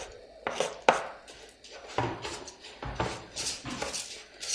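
Chopped garlic scraped off a chopping board into a coated pot with a wooden spoon, with a few sharp knocks about a second in. Then the wooden spoon stirs and scrapes dry rice frying in oil around the pot.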